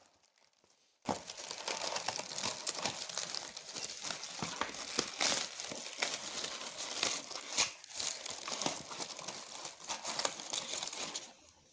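Brown honeycomb kraft packing paper crinkling and rustling as hands pull it apart and out of a cardboard box, a dense run of crackles starting about a second in and dying away near the end.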